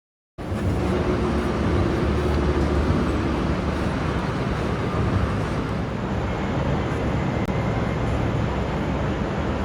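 Train running with a steady, loud rumble, starting abruptly just after a brief gap.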